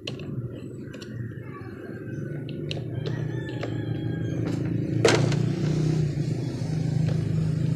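Plastic pressure-washer housing being handled and turned by hand: scattered light clicks and taps, with one louder knock about five seconds in, over a steady low hum.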